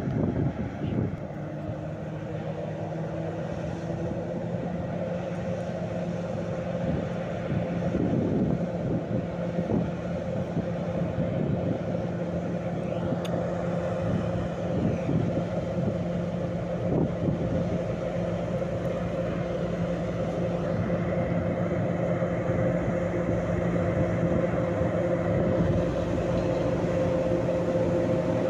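Adtranz class 220 diesel-electric locomotive approaching slowly with a train of tank wagons, its engine running with a steady drone that grows gradually louder as it nears.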